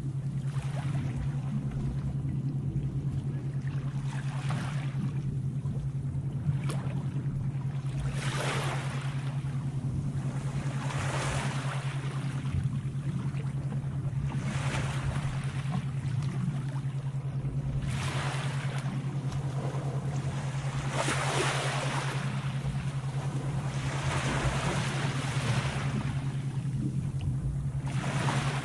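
Sea waves washing in and out, each swell rising and fading about every three to four seconds, over a steady low hum. A single sharp click a little over six seconds in.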